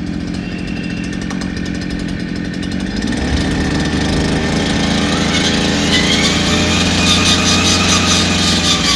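Brush cutter engine idling, then speeding up about three seconds in and held at a higher speed, spinning its cutting attachment without load.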